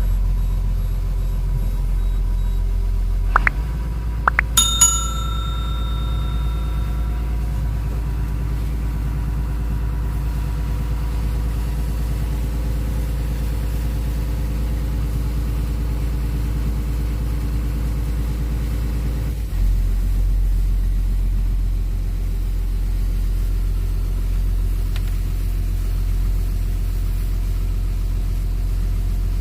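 Sunward excavator's diesel engine running steadily. About four seconds in come two sharp clicks and then a bell-like ringing tone that fades over a couple of seconds; later the engine note steps up and stays a little louder.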